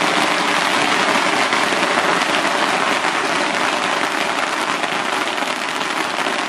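A long string of firecrackers going off nonstop, a dense crackle of countless small bangs.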